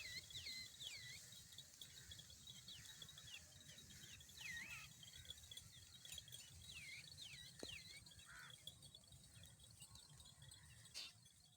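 Faint outdoor birdsong: many short chirps that swoop down and back up in pitch, repeating throughout, over a steady high insect drone.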